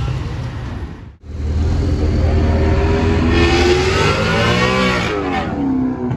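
Maserati GranCabrio's V8 accelerating as it drives past, after a short break in the sound about a second in. The engine note climbs steadily for about three seconds, then drops sharply near the end and settles at a lower pitch.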